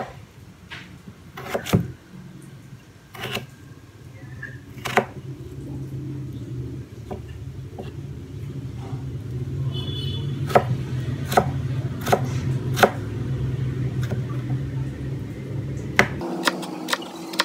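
Kitchen knife cutting and dicing a raw potato on a cutting board: a dozen or so sharp, separate knocks of the blade meeting the board. Under them runs a steady low hum that cuts off suddenly near the end.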